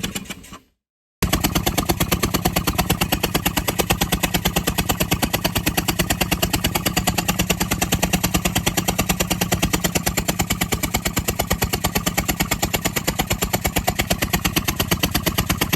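Ford E-350 van engine running with a rapid, steady train of pulses. The engine shakes without setting a misfire code. The sound breaks off for a moment near the start and then carries on unchanged.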